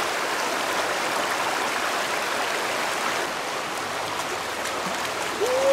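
Shallow stream running over and between stones: a steady rush of water.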